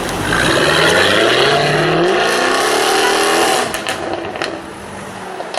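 Jaguar F-Type R's supercharged 5.0-litre V8 accelerating hard, its note climbing steadily for about three seconds, then falling away quickly with a few sharp exhaust pops.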